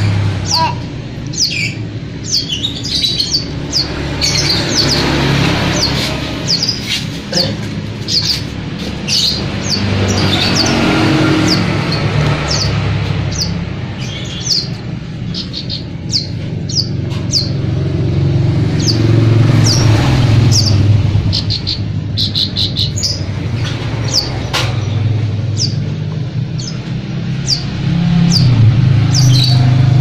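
A young caged songbird chirping over and over, short high notes that each slide downward, coming singly and in quick clusters. A steady low engine rumble of passing traffic runs underneath and swells twice, near the middle and near the end.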